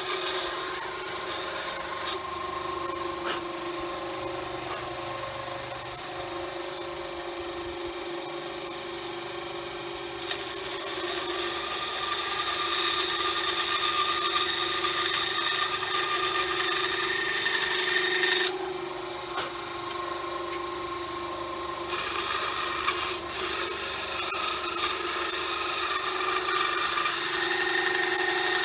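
Benchtop band saw running and cutting curves in an oak board: a steady motor hum under the rasping of the blade in the wood. The cut gets louder toward the middle, drops off for a few seconds about two-thirds of the way through, then picks up again.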